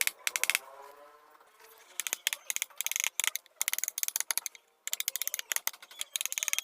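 Rapid tapping of a mallet on a chisel cutting into teak, in quick runs of sharp strikes with a lull about a second in.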